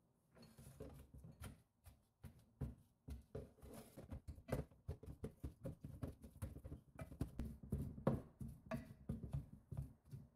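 Wooden potato masher pounding boiled potatoes in an enamel pot: a quick, steady run of thuds, about three a second, as the potatoes are mashed.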